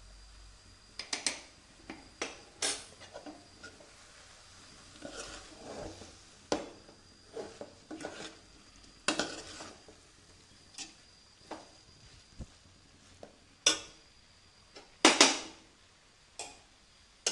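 Steel spoon stirring a thick lemon pickle in a metal pan, mixing in salt, scraping and clinking against the pan at irregular intervals. The loudest knocks come about 14 and 15 seconds in.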